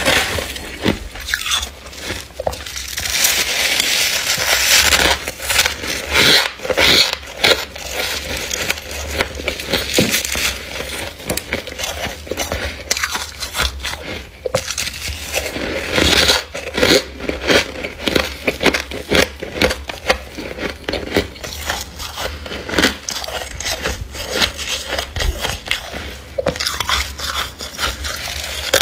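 Thick frost built up inside a freezer being scraped and crunched: a dense, irregular run of crunches, crackles and scrapes.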